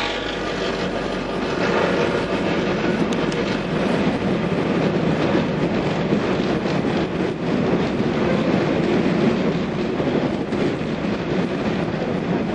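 A train rolling past at speed: a steady rumble of wheels on the rails with faint clicks from the rail joints.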